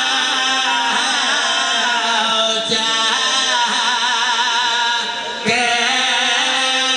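A man chanting verse in a sung, melodic style into a microphone, his voice wavering and ornamented in pitch, with a short pause for breath about five seconds in.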